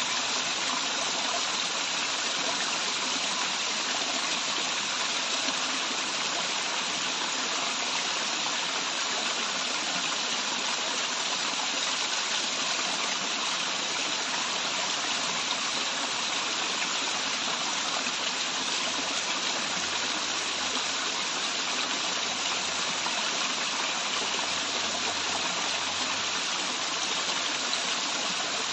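Waterfall and stream water running steadily, an even rushing hiss.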